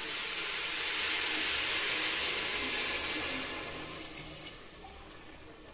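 Jaggery water poured from a steel bowl into a hot pressure cooker of oil-fried rice, hissing and sizzling as it hits the pan. The hiss is strongest for about three seconds, then dies away as the pour ends.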